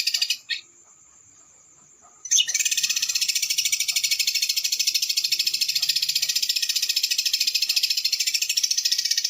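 A small songbird's high-pitched, very fast rolling trill, the 'roll speed' song used as a masteran recording for shamas to learn. It breaks off about half a second in and starts again after nearly two seconds.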